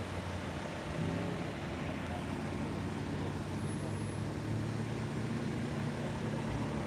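A slow queue of cars rolling past close by, their engines running with a steady low hum and no revving.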